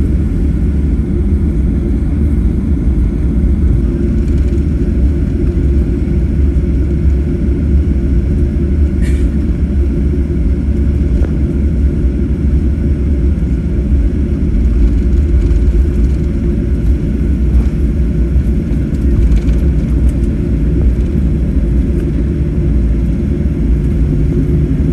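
Steady low rumble of a vehicle in motion, heard from inside, unchanging throughout.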